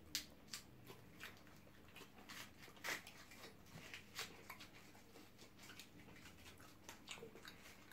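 Faint, scattered clicks and soft crackles of eating at close range: chewing, mouth sounds and fingers pulling at crisp fried chicken wings.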